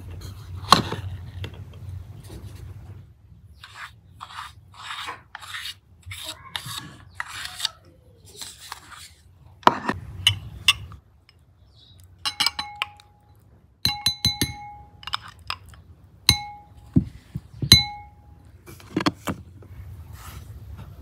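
Metal spoon scraping and scooping in a glass bowl, then tapping against the bowl several times in the middle, each tap a short ringing clink.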